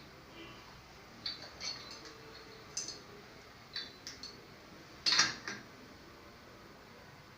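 A handful of short metallic clicks and clinks, irregularly spaced, as a water tap is handled and screwed into its fitting; the loudest clink comes about five seconds in.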